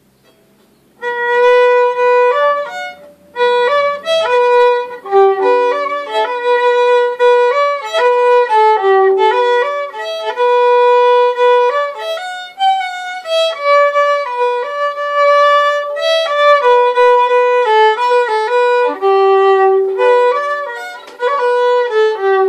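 Solo violin bowed by hand, playing a simple melody of held and stepping notes. It starts about a second in, with short pauses between phrases.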